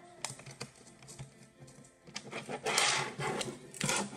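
Light clicks of a small screwdriver in the screws of a DVD drive's plastic frame. About two seconds in comes a louder stretch of plastic parts rattling and scraping as the frame is handled, with a second short rattle near the end.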